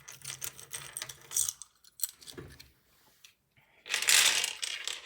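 Plastic keycaps clicking and clattering as they are handled and pressed onto a Ducky mechanical keyboard, with a louder, noisy rattle lasting about a second near the end.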